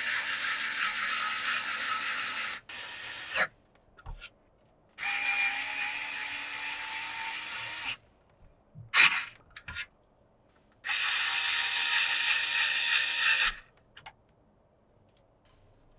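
Small electric screwdriver running in three spells of about three seconds each, with short clicks and knocks of handling between them.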